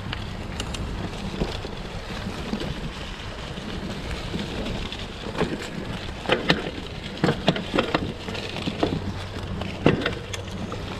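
Mountain bike (2021 Gravity FSX Comp) rolling over dry fallen leaves on a dirt trail: a steady rustling crackle of tyres through the leaf litter. A run of sharp clicks and clatters comes from about six to ten seconds in, as the bike rattles over rough ground.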